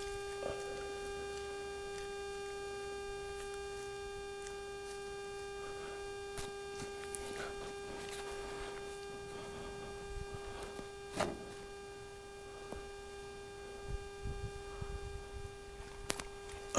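A steady machine-like hum holding one pitch with overtones, with a few faint clicks and rustles, one sharper click about eleven seconds in.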